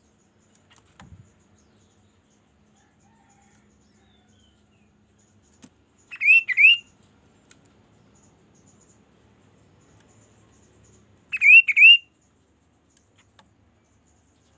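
Kaso-kaso bird calling twice, about five seconds apart. Each call is a quick pair of loud whistled notes that dip and then rise.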